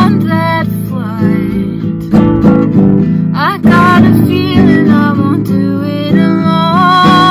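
A woman singing a slow melody over her own strummed acoustic guitar, a classical-style guitar strummed in chords with a new strum every second or two.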